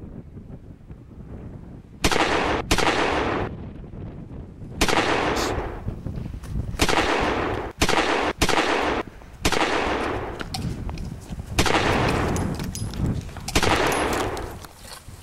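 Gunshot sounds in a mock gunfight: about ten sudden, loud bangs at uneven intervals, some in quick pairs, each trailing off over half a second or more.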